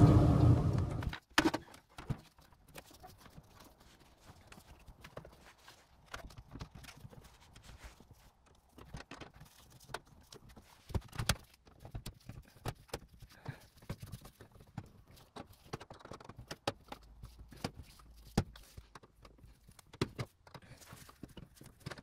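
A loud steady hum fades and cuts off about a second in. After that come faint, irregular clicks and knocks of the furnace's sheet-metal access panel and its fittings being handled.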